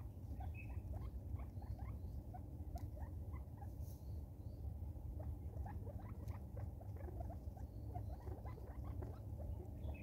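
Light scattered ticking and pattering of Natal spurfowl pecking at loose seed on a wooden stump, many small taps a second, over a steady low rumble.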